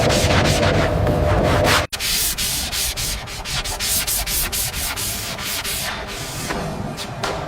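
Rapid, rhythmic back-and-forth sanding strokes, with a momentary dropout about two seconds in where the footage cuts.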